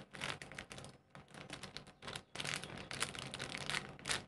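Clear plastic bag crinkling as the squishy toy inside it is handled and squeezed: a quick, irregular crackle that thins out about a second in and grows busier from about halfway.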